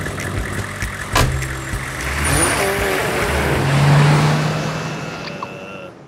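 A vehicle-like rushing noise with a low hum that swells to a peak about four seconds in and then fades away, with a sharp click just after the first second.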